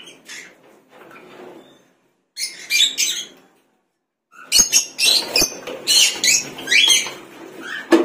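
Rosy-faced lovebirds (lutino) chirping and screeching in short, high-pitched bursts. The calls grow loud about two and a half seconds in and again from about four and a half seconds, with two sharp knocks among them.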